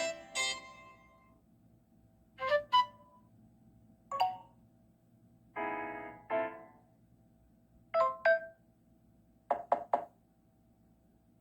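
A run of different short cell phone notification tones played one after another with brief silent gaps: two-note chimes, a single ding, a longer buzzier pair of tones about six seconds in, another two-note chime, and a quick three-note figure near the end.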